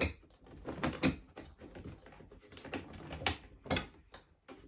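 Household items being handled and packed into a storage box: a run of irregular knocks and rustles, louder about a second in and again after three seconds.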